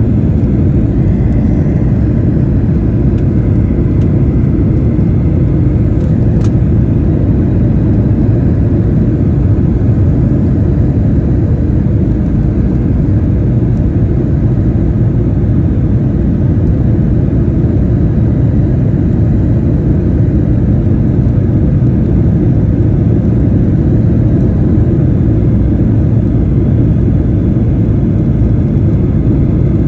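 Steady, loud roar inside the cabin of a Boeing 737-800 on approach: its CFM56-7B engines and the rush of air over the fuselage.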